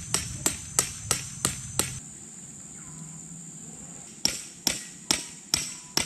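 Tent stake being hammered into the ground: sharp, evenly spaced blows, about three a second. There are six in the first two seconds, then a pause of about two seconds, then five more.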